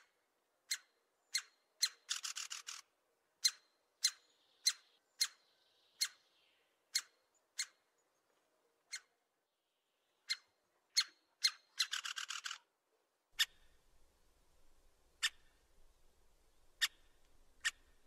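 Woodpecker knocking: sharp single taps every half second to second, broken twice by a brief rapid roll of drumming under a second long.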